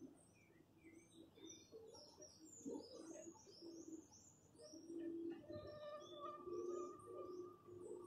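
Faint birdsong: small birds chirping in quick high notes, mostly in the first half, with a dove cooing in low held notes.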